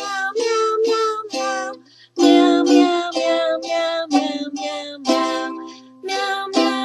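A woman singing a children's song over ukulele strumming, a run of short sung notes with a brief pause about two seconds in.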